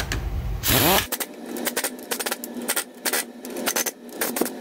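Impact driver on its lowest setting snugging a crankcase cover's bolts down in a cross pattern. There is one short run with a rising whine just before a second in, then a string of quick clicking and rattling bursts as it moves from bolt to bolt.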